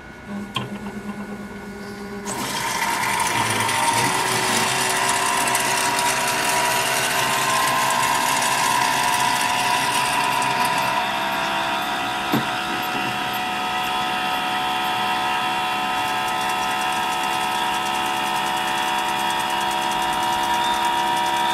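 Anajet mp5i direct-to-garment printer running a machine cycle. There is a brief motor whir at the start; then, from about two seconds in, a steady mechanical whine with several steady tones as the print-head carriage and its motors move. A single sharp click comes about halfway through.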